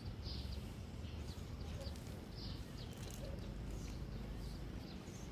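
Faint short bird chirps, several times, over a low steady background rumble.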